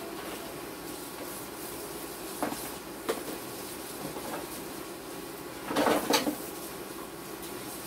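Dishes and a pan knocking against each other as they are handled at the kitchen sink: two light knocks, then a louder clatter a little after the middle, over a steady low hum.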